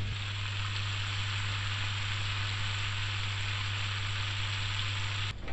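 Flour-coated chicken breast strips deep-frying in a pan of hot oil, a steady, even sizzle with a constant low hum underneath. It cuts off abruptly near the end.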